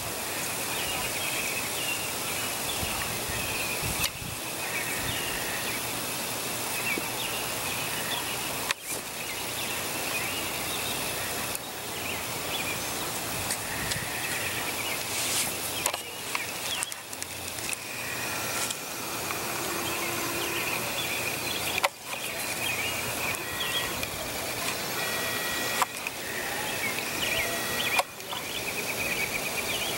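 Outdoor evening ambience: a steady hiss with small high chirps coming and going, and a few brief clicks.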